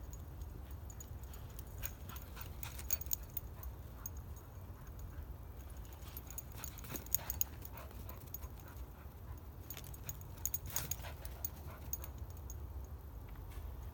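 Goldendoodle puppy and a white-tailed deer scampering about in snow: scattered short scuffs and crunches, bunched about two, seven and eleven seconds in, over a steady low rumble.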